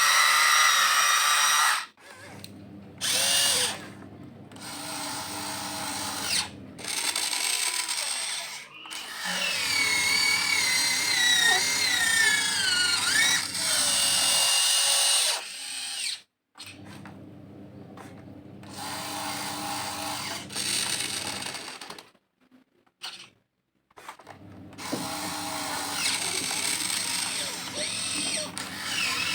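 Huina 1592 RC excavator's electric motors and gearboxes whining in bursts as it works, the whine rising and falling in pitch with motor speed. There are several brief pauses between movements.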